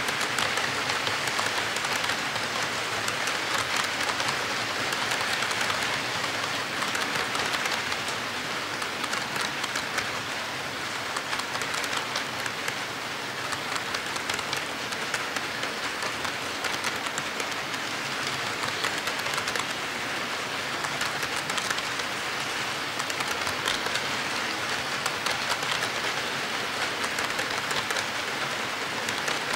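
HO-scale model freight cars rolling past on the track: a steady rolling clatter of wheels on rail, made of many tiny clicks, swelling and easing a little as the cars go by.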